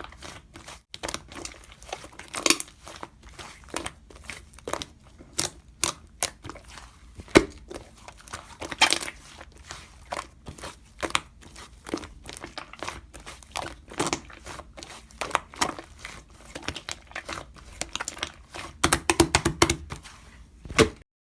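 Slime being squished and worked by hand, making a steady run of sharp clicks, pops and crackles, with a quick flurry of them near the end.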